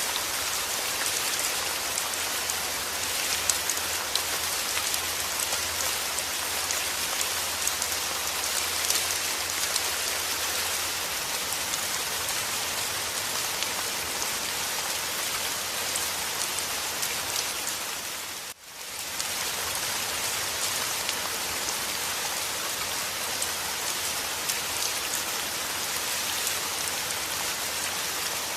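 Steady rain falling, a dense hiss of many drops. It dips briefly about two-thirds of the way through, then comes back at the same level.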